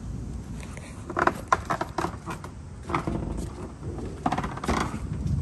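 A run of irregular sharp clicks and knocks close to the microphone, starting about a second in and bunching near the end, over a low steady rumble.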